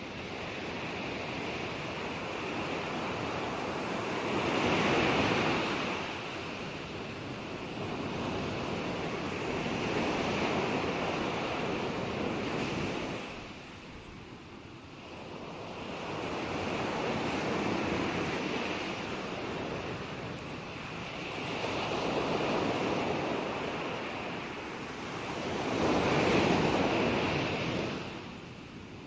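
Ocean waves breaking and washing on the shore in slow, even surges, each swelling and fading over several seconds, about five or six in all.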